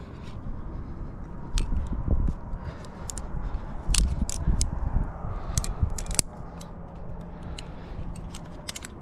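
Climbing gear being handled at an anchor: a run of sharp metallic clicks and clinks of carabiners and quickdraws being unclipped, with bouts of low rumbling from handling close to the microphone.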